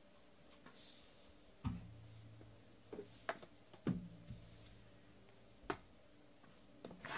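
Handling of a shrink-wrapped trading-card box and a utility knife: a dull thump, a few short knocks and clicks about three to four seconds in, and one sharp click near the end.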